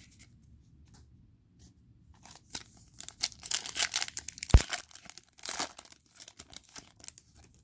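Foil wrapper of a 2020 Elite football card pack being torn open by hand: a dense crinkly tearing about three seconds in that ends in one sharp snap, then a shorter crinkle. Light ticks of cards being handled come before it.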